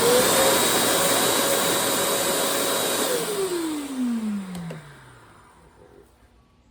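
Shark Rocket stick vacuum's motor switched on, spinning up with a quickly rising whine to a steady whine over a rush of air, then switched off about three seconds in and winding down with a falling whine.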